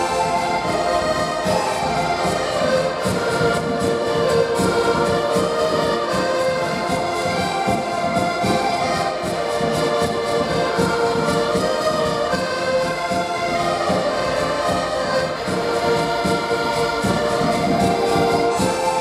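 Ensemble of about ten accordions playing a tune together in sustained chords over a steady beat.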